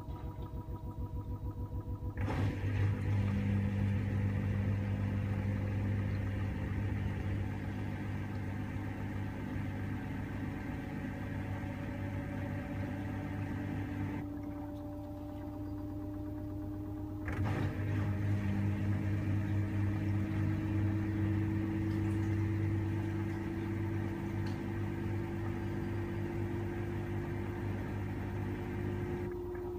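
LG TurboWash front-loading washing machine in its final spin at up to 1400 rpm, its motor whine slowly rising in pitch as the drum speeds up. A low drain-pump hum cuts in about two seconds in, stops about halfway, and cuts in again a few seconds later.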